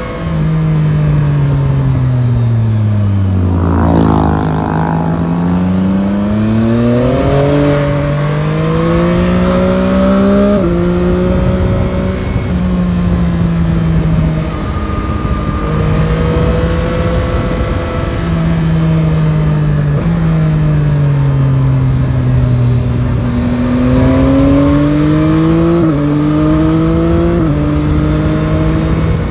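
Yamaha Tracer 9 GT's three-cylinder CP3 engine under way on a road ride: its pitch falls over the first few seconds as the bike slows, then climbs under acceleration with gear changes, holds steady while cruising in the middle, and dips and climbs again with quick shifts near the end. A steady rush of wind and road noise runs underneath.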